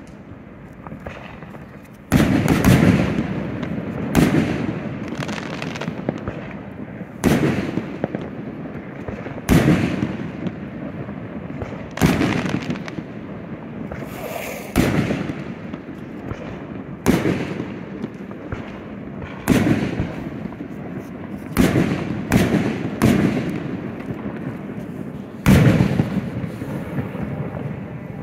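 Aerial fireworks shells bursting overhead: about eleven loud booms, two to three seconds apart, beginning about two seconds in. Each boom trails off in a rumbling tail.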